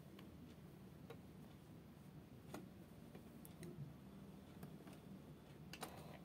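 Near silence: a few faint, scattered clicks and taps from hands handling silk fabric under a sewing machine's presser foot, over a low, steady hum; the machine is not stitching.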